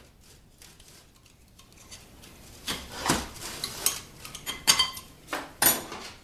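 Clutch friction and steel plates being worked out of the direct clutch drum of a Ford 4R44E automatic transmission: a run of metallic clinks and scrapes starting a couple of seconds in, some plates ringing briefly as they knock together.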